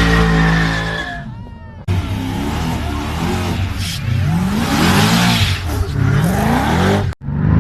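Sports car engines accelerating. The first engine runs loud and steady, then fades within about a second. After a cut, another engine revs up repeatedly, its pitch rising several times, before a second cut near the end.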